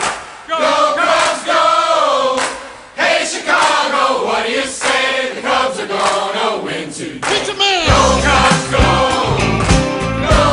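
Music: several voices singing together, then about eight seconds in a band with a heavy bass beat comes in.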